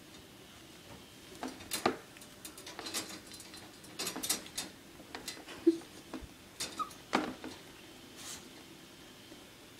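Yorkie pawing and scratching at the bars of a wire dog crate, rattling the metal in an uneven string of clicks and scrapes over several seconds, with a brief whimper in the middle: the dog wants out of the crate.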